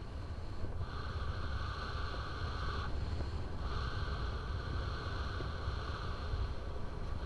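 Wind rushing over the camera microphone of a paraglider in flight: a steady low rumble, with a higher hiss that comes in about a second in, drops out for a moment near the middle, then returns.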